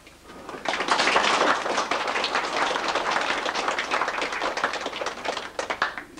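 A small group of people applauding with hand claps. The applause starts about half a second in, holds dense, then thins to a few scattered claps and stops near the end.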